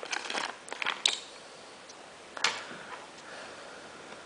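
Headphone packaging crinkling and clicking as the headphones are taken out: a quick run of crackles and a sharp click in the first second, then one brief rustle a little later.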